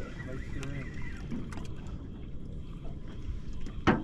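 Water slapping and lapping against the hull of a small fishing boat, with a low steady rumble, and one sharp knock on the boat near the end.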